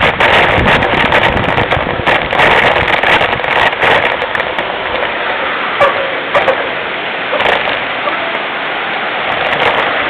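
Continuous rattling and rumbling of a mountain bike riding over a rough dirt trail, heard through a camera mounted on the bike, with a few sharp knocks near the middle.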